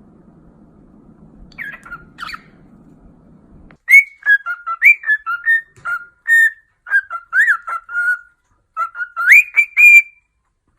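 A parrot whistling a quick run of short notes that glide up and down in pitch, starting about four seconds in, after a couple of faint chirps.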